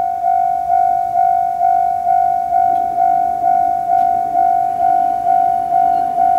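Railway level-crossing warning bell ringing: one steady-pitched ding repeated about twice a second, warning that a train is approaching while the barriers come down.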